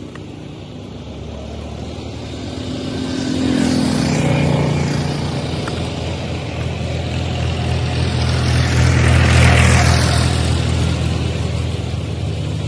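Motor vehicles passing on the road, their engines swelling and fading with a rush of tyre and wind noise. One pass peaks about four seconds in, and a louder one comes around nine to ten seconds.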